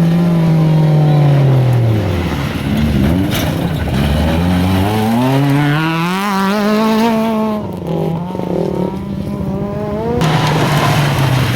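Rally car engine under hard driving on a gravel stage. Its pitch falls over the first few seconds, climbs steeply, then holds. The sound dips and thins for about two seconds before it comes back.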